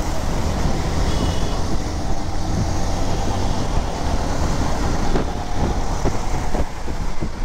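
Royal Enfield Bullet 500's single-cylinder engine running steadily while riding in traffic, a dense low rumble with traffic noise around it.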